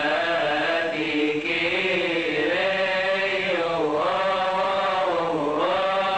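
Coptic liturgical chant: voices sing long, drawn-out melismatic notes that slide up and down in pitch. A rushing noise swells over the chant from about one to four seconds in.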